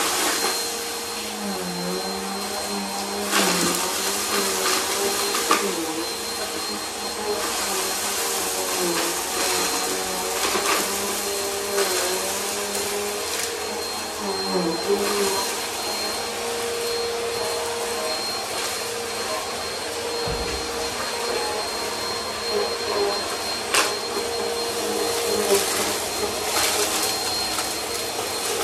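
Bissell bagless upright vacuum running as it picks up crushed dry food from a rug. Sharp clicks and rattles of debris being pulled up the nozzle sound over the steady motor whine, whose pitch dips briefly now and then as the head is pushed over the carpet.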